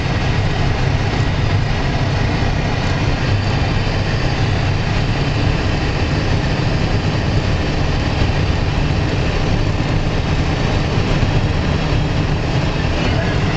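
Steady road and engine noise of a car driving at speed, heard from inside the cabin as it passes through a highway tunnel: an even, loud rumble and tyre roar.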